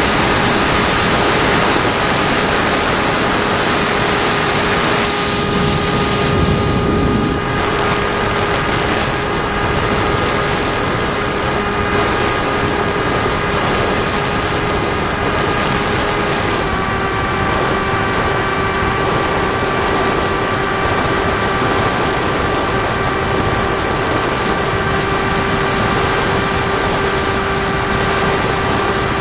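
RC model plane's motor and propeller running steadily in flight, heard from the camera on board, with the rush of air over it. A high thin whine joins about seven seconds in.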